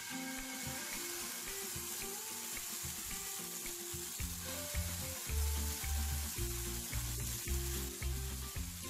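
Oat-and-banana pancake batter sizzling with a steady hiss as it is poured onto a hot, lightly oiled non-stick pan. Background music with a pulsing bass line plays underneath.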